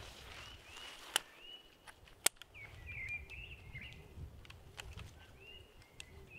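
Two sharp plastic clicks about a second apart as the latches of a trail camera's case are unclipped, with small birds chirping repeatedly in the background.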